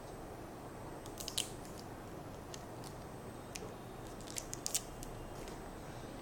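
Adhesive tape being handled and pressed around wires: a few short, scattered crackles and clicks over a steady background hiss.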